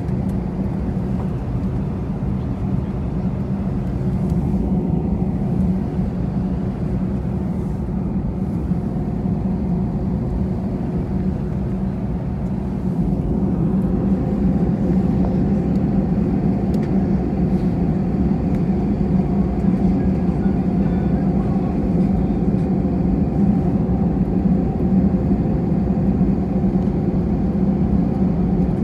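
Steady low drone of an Airbus A320's jet engines and airflow heard inside the passenger cabin while the airliner taxis before takeoff, growing a little louder about thirteen seconds in.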